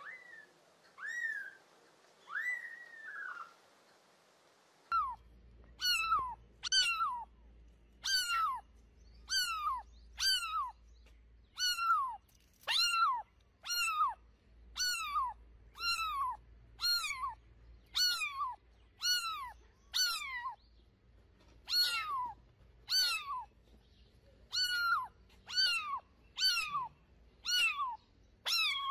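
Kittens meowing. First a few high mews from newborn kittens, then a single young kitten meowing over and over, about once a second, each meow sliding down in pitch.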